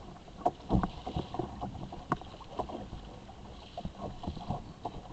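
Water slapping and splashing against the hull of an Ocean Kayak Malibu Two XL sit-on-top kayak, with irregular short knocks several times a second over a steady wash of water.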